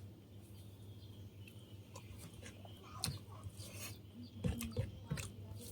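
Close-up eating sounds of rice and fish: scattered soft wet clicks and smacks, becoming busier about halfway through, over a steady low hum.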